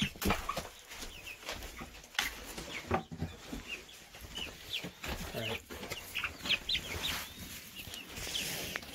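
Young pullets chirping and peeping in many short, high calls, with a few sharp knocks among them.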